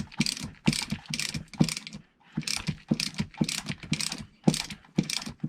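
Ratcheting wrench clicking in quick back-and-forth strokes, two to three a second with a short pause about two seconds in, as it tightens the nut that clamps the top mount onto a rear shock absorber's rod.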